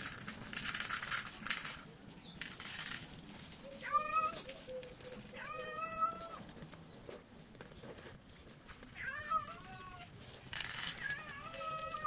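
Stray cats meowing: four separate meows a few seconds apart, each under a second long. A rustling, crinkling noise comes in the first second or so and again shortly before the last meow.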